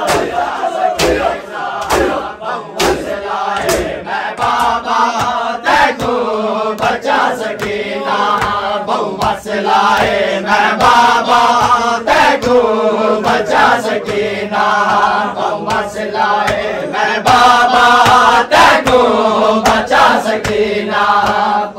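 A crowd of men chanting a noha together, loud and rhythmic, with the slaps of hands beating on chests (matam) keeping time, plainest in the first few seconds.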